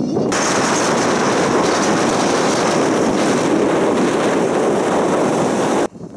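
Loud, steady rush of wind and motor noise from a moving motorbike carrying two riders. It starts abruptly just after the beginning and cuts off suddenly near the end.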